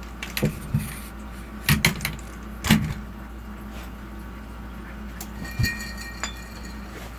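A handful of sharp knocks and clatters from handling things on a table, then, from about five seconds in, a phone's alert beeping in high repeated tones.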